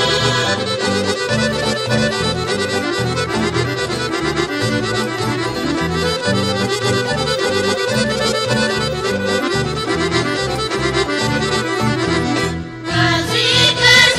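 Instrumental folk dance music with a driving bass rhythm. Near the end it drops out for a moment and a brighter passage begins.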